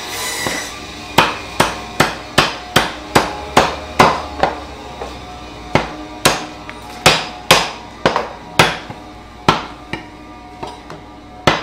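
Butcher's cleaver chopping raw meat into small pieces on a wooden chopping block: a run of sharp chops, about two or three a second, starting about a second in, with a couple of short pauses.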